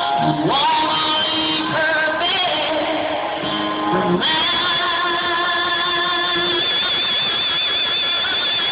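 Live concert music heard from the audience: a woman sings a phrase, then from about four seconds in holds one long high note with vibrato.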